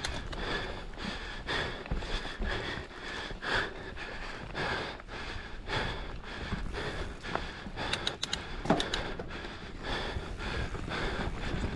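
Mountain biker breathing hard and fast from the effort of a race stage, one quick breath after another, over a low rumble of tyres and wind on the microphone. A few sharp clacks, likely from the bike, come about two thirds of the way in.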